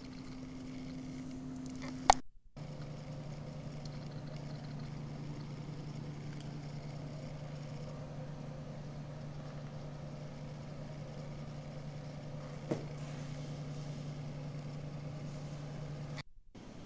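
Steady low background hum that drops to a lower pitch after a sharp click and a brief dropout about two seconds in, where the recording cuts; a fainter tick later on, and another short dropout near the end.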